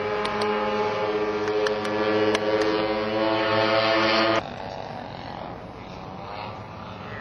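Four two-stroke chainsaw engines of a large model B-29 running together in flight, a steady many-toned drone. About four seconds in it cuts off abruptly, and a fainter, more distant engine drone follows with a slight rise and fall in pitch.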